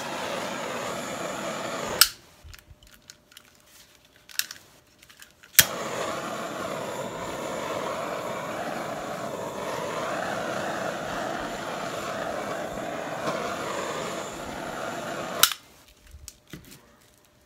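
Hairdryer clicked on and blowing steadily for about two seconds, then clicked off. A few seconds later it clicks on again and runs steadily for about ten seconds before clicking off, blowing air across wet acrylic paint on a canvas.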